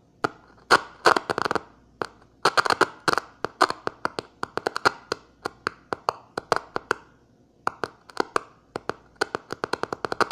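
Hand-keyed Morse code on an improvised key made of two screwdriver contacts: sharp clicks in irregular groups, from single strokes to quick runs, with short pauses between them.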